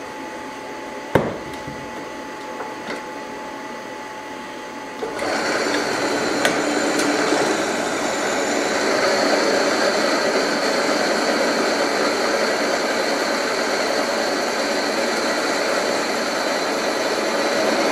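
Bench drill press running, with a single click about a second in. About five seconds in, the bit bites into a metal bracket and cuts steadily, drilling an 8.5 mm clearance hole with cutting fluid on the bit.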